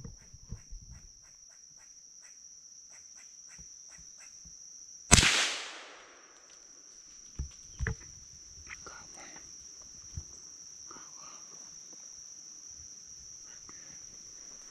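A single loud gunshot about five seconds in, dying away within about a second, over a steady high-pitched drone of insects. A few light clicks and rustles follow.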